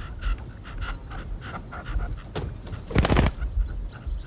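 Red-legged partridges calling at a caged decoy partridge: a rapid run of short clucking notes, several a second. About three seconds in comes a brief loud flurry of wingbeats.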